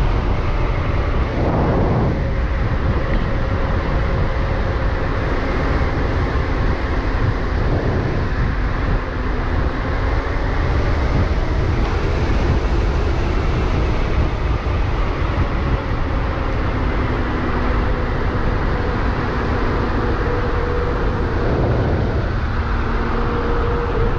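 Riding an electric bike: steady wind rush and road rumble on the microphone, with a faint hub-motor whine that drifts slowly in pitch.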